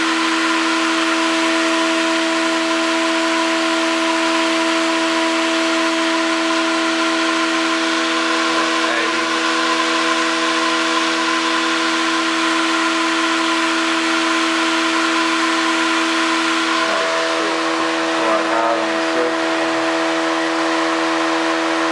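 Homemade angle-magnet pulse motor, an SG-style design, running at steady speed: a constant whine made of several steady tones over a loud hiss.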